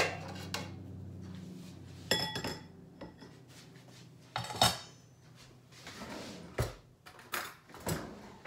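Spatula knocking and scraping in a wok and clinks of a china plate as stir fry is served onto it, a few sharp clinks with a brief ring. A steady low hum stops about a second and a half in.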